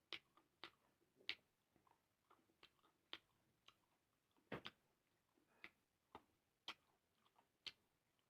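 Faint, irregular clicks and smacks of someone eating, about ten in all and spaced unevenly, with near silence between them.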